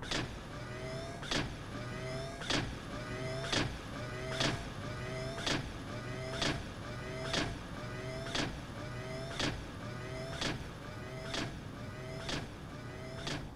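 Robot walking sound effect: a clank followed by a short rising motor whir with each step, repeating about once a second.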